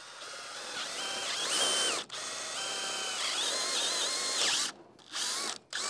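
Power drill with a half-inch bit boring straight down through a wooden wall header, the motor whine shifting up and down in pitch under load. It stops for a moment about two seconds in, runs again until near the end, then gives one short last burst.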